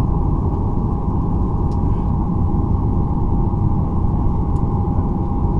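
Cabin noise of a Boeing 737-800 taxiing on the ground: a steady low rumble with its engines at idle, under a constant mid-pitched hum.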